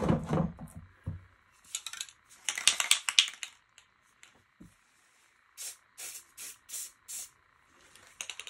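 Aerosol spray-paint can hissing in bursts: a couple of longer sprays, then five short puffs about a third of a second apart. There is a low thud at the very start.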